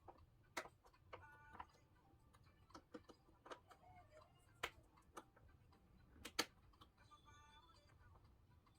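Faint, scattered sharp clicks and taps of small tools and plastic parts as a replacement charging-port board is fitted inside a Samsung A50 phone, the loudest two about halfway through and near the end.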